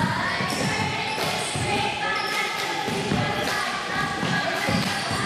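Basketball bouncing on a gym court during play, several thuds amid short high squeaks and steady background crowd noise.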